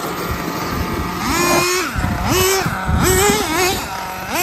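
RC off-road car motors revving hard, their high pitch swinging up and down in quick repeated swells as the cars accelerate and back off.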